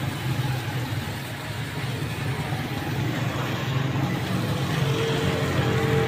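Steady street noise: a low engine-like hum with an even hiss over it and no single sound standing out. A faint steady tone comes in near the end.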